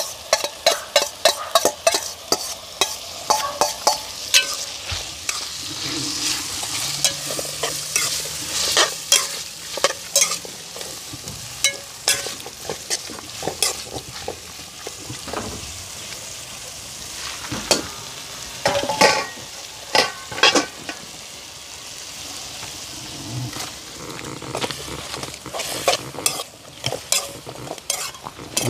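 Saltfish frying in a pot with a steady sizzle while a spoon stirs it. The spoon clicks and scrapes against the pot many times, most often in the first ten seconds.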